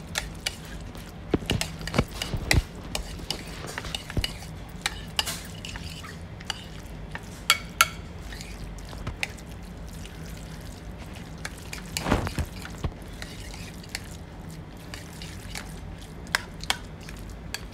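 Metal spoon stirring and mashing curd rice in a porcelain bowl, with irregular clinks and scrapes of the spoon against the bowl and a short busier run of them about twelve seconds in.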